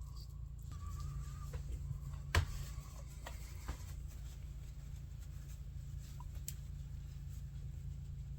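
Steady low workshop hum with a few light clicks and taps from small objects being handled. The sharpest tap is about two and a half seconds in. A faint wavering tone fades out about the same time.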